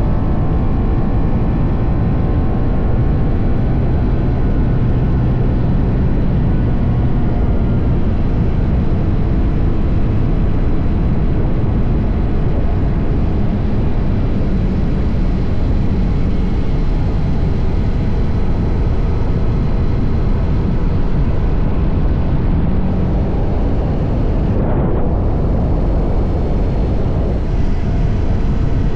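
TVS Apache RR310 motorcycle riding at speed, its single-cylinder engine and stock exhaust under a heavy, steady rush of wind on the microphone. The engine note eases down slightly near the start.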